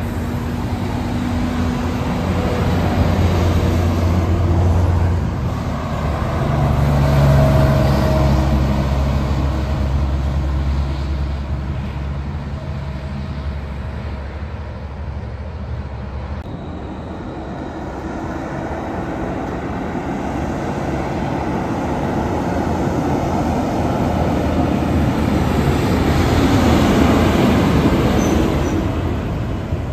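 Heavy trucks passing on a highway: a low diesel engine drone in the first half, then tyre and road noise swelling and fading as another truck goes by near the end.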